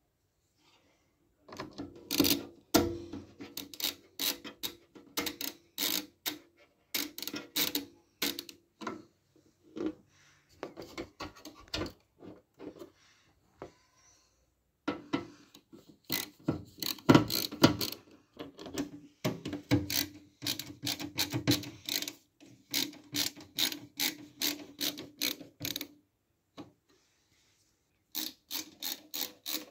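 Ratcheting screwdriver (an LTT screwdriver) clicking in quick runs as it drives the motherboard screws into the case standoffs, in several spells with short pauses between.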